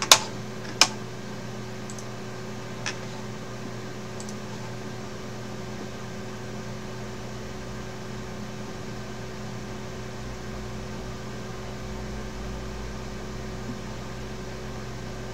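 Steady hum and fan noise of a running computer, with a few sharp clicks in the first five seconds, the loudest two right at the start.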